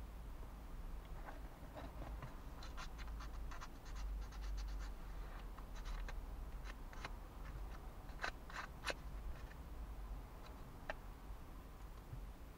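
Thin wooden model-kit pieces being pressed out of their sheet and handled: a string of small clicks and snaps, thickest about three to five seconds in and sharpest around eight to nine seconds.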